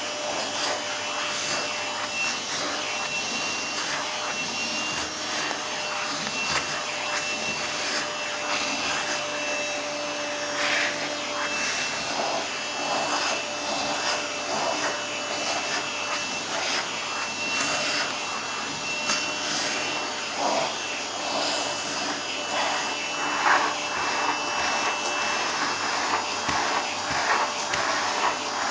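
Vacuum cleaner running continuously while it is used on a cat's fur. Its steady motor whine is overlaid by an irregularly shifting rush of air as the nozzle moves about.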